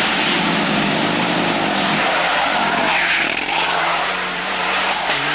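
Rally car driven hard at high revs, its engine note running under loud tyre and road noise that swells in the middle and eases near the end.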